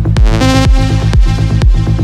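Electronic dance music with a steady kick drum about two beats a second and a synth chord coming in about half a second in.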